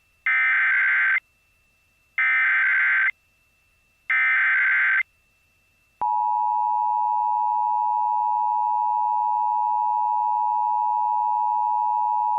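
Emergency Alert System SAME header: three identical bursts of screeching digital data, each just under a second long. About six seconds in, the steady two-tone EAS attention signal begins and holds.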